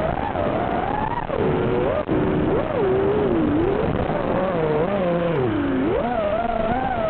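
FPV quadcopter's brushless motors (RCX 2400 kV on 4S, five-inch props) whining, the pitch sweeping up and down with the throttle as it flies. Several sharp dips and climbs in pitch, with a low hiss under the whine.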